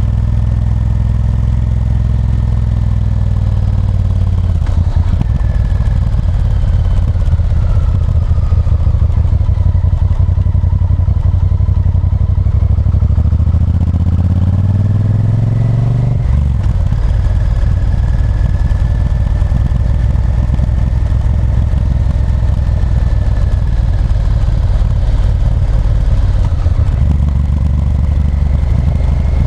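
Honda Varadero 1000's V-twin engine on the move, heard from the rider's position. It climbs in pitch under acceleration for a few seconds past the middle, then drops suddenly at an upshift and carries on at a steady pace.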